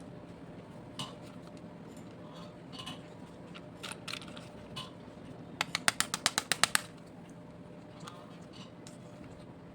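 Light clicks and taps of small toy vehicles being handled, with a quick run of about ten sharp clicks a little past halfway, over a faint steady hum.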